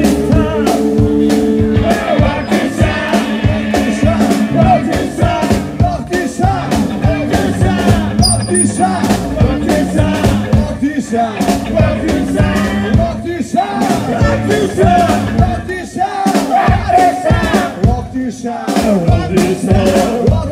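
Live rockabilly band playing on stage, with several voices singing over electric guitar and a steady drum beat. A held chord rings out for the first couple of seconds before the singing comes in.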